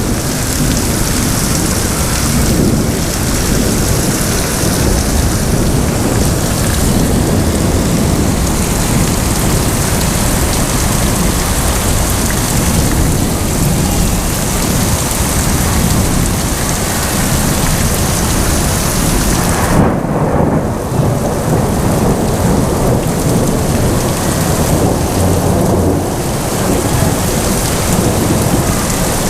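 Thunderstorm: heavy rain hissing steadily with low thunder rumbling throughout. The hiss of the rain dips briefly about twenty seconds in.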